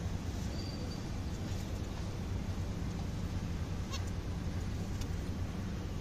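Female zebra finch giving a few short calls, the clearest two about four and five seconds in, over a steady low background hum.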